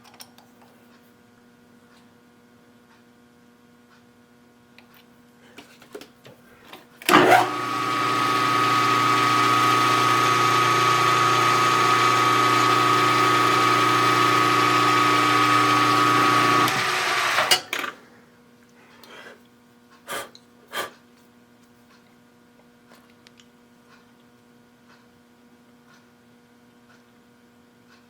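Milling machine spindle with a boring head switched on about seven seconds in, running steadily for about nine seconds, then switched off. Before and after it there is a low steady hum with a few light clicks.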